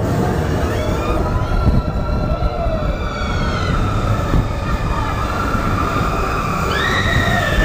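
Expedition Everest coaster train rumbling along its track as it rolls backward into the dark mountain after the broken-track stop. Long high-pitched screams glide up and down over the rumble, with a loud one near the end.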